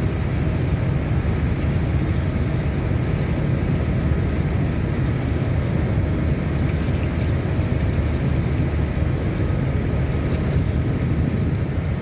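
Steady low rumble of a boat's engine, mixed with wind on the microphone, with no break or change throughout.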